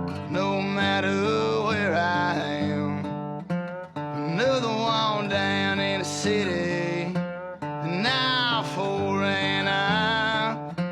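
Country-style song with acoustic guitar and a gliding melody line, used as background music.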